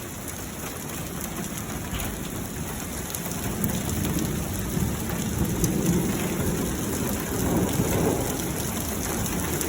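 Heavy rain mixed with small hail falling steadily, with a low rumble of thunder building from about a third of the way in and easing near the end.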